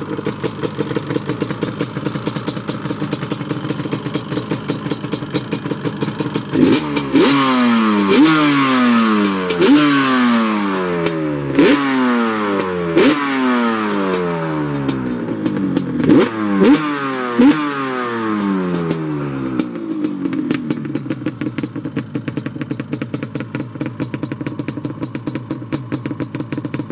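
Yamaha Banshee 350's twin-cylinder two-stroke engine, breathing through Toomey T5 expansion pipes and silencers, idling, then blipped repeatedly from about seven seconds in: each blip revs up sharply and winds back down. It settles back to a steady idle around twenty seconds in.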